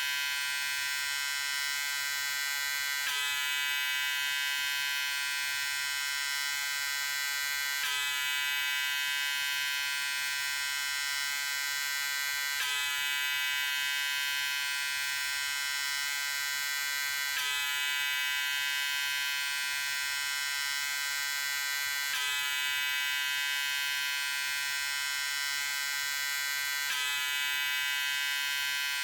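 Electric shaver running with a steady buzz, a slight shift in tone recurring about every five seconds.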